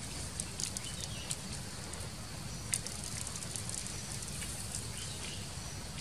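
Wood fire crackling under a simmering wok: a steady hiss with scattered sharp pops and ticks, one louder pop about three seconds in.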